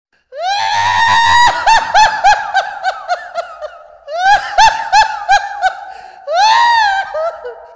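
High-pitched laughter in three bursts, about a second, four seconds and six seconds in. Each starts with a long rising note and breaks into quick 'ha-ha' pulses that fade away.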